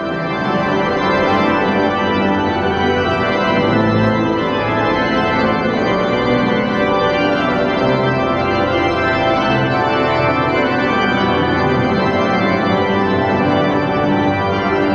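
Church pipe organ playing sustained chords.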